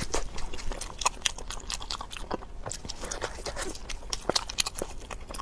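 Close-miked eating of grilled shellfish: irregular crackles and clicks of crustacean shell being cracked and pulled apart, mixed with wet chewing.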